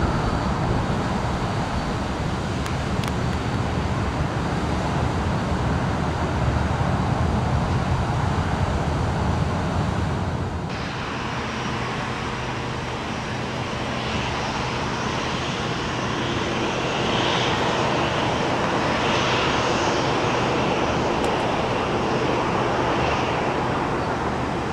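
Airliner jet engine noise, a steady loud rush. The sound changes abruptly about ten seconds in, to a thinner sound with more hiss.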